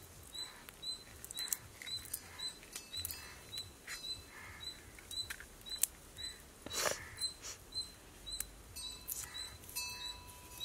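Garlic cloves being peeled by hand: soft papery crackles and small irregular clicks of skin and fingernails. Behind them a faint high chirp repeats evenly, about three times a second.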